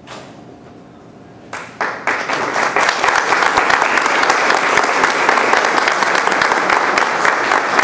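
Audience applauding: a few scattered claps about a second and a half in, swelling within half a second into steady applause from the whole room.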